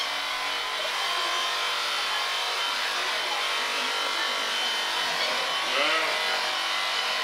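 Corded electric sheep-shearing handpiece running steadily as it clips the fleece off a sheep: a constant motor buzz with the cutter rasping through the wool.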